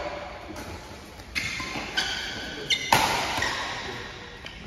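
Badminton rackets striking a shuttlecock in a rally: sharp hits echoing in a large hall, three or so in quick succession with the loudest about three seconds in. A short high squeak comes in the middle of the rally.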